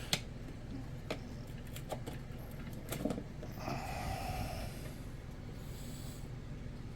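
A few light clicks and taps of RC boat parts being handled on the bench, with a short rasp about three and a half seconds in, over a steady low hum.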